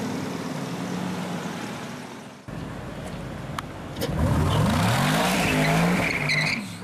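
A Mercedes-Benz SLR McLaren's supercharged V8 running steadily as it drives past. After a sudden cut, a supercar's engine is revved and accelerates hard, its note rising in pitch again and again through the shifts; this is the loudest part, with two sharp clicks just before it.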